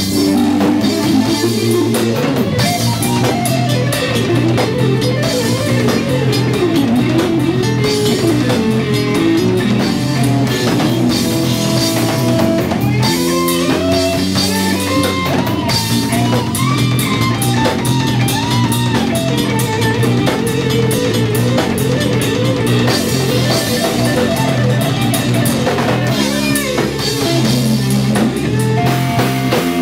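Live instrumental jazz-rock fusion band playing: an electric guitar lead with bent, gliding notes over a drum kit and bass.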